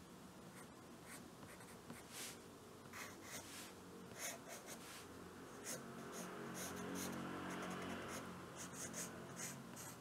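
Soft graphite drawing pencil scratching on drawing paper in short strokes, with one longer unbroken stroke about six seconds in.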